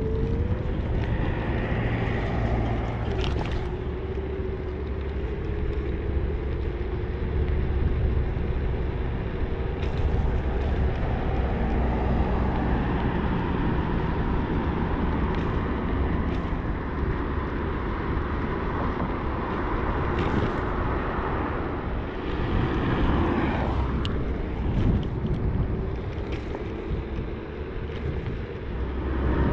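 Inokim Quick electric scooter riding along: wind rushing over the microphone and tyre rumble on the pavement, with a steady whine from its 600 W gearless hub motor through the first several seconds. A few sharp clicks from bumps in the road.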